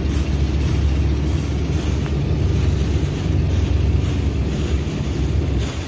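Fishing boat's inboard engine running steadily with a low drone, with water churning around the hull; the drone drops somewhat near the end.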